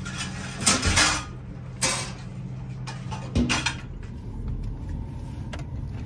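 A used top-load washing machine being handled: a few sharp knocks and clacks of its lid and tub over the first four seconds, over a steady low hum. After that only a low rumble is left.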